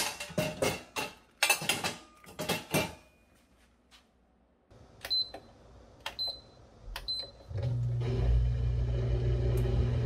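Metal pots and dishes clattering as they are loaded into a dishwasher's wire rack. Then three short beeps as the dishwasher's panel buttons are pressed, and about three-quarters of the way in the dishwasher starts its cycle with a steady low hum.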